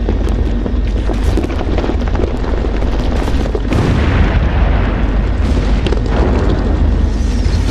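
Battle sound effects: a continuous deep rumble of explosions with many sharp shots crackling over it.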